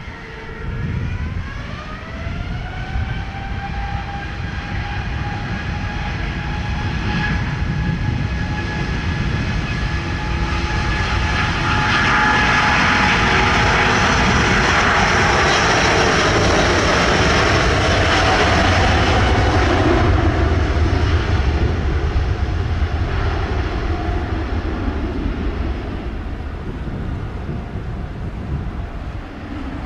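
Airbus A330-900neo's Rolls-Royce Trent 7000 engines spooling up to takeoff thrust with a rising whine. The jet roar of the takeoff roll then builds to its loudest as the airliner passes, and eases off near the end as it rotates.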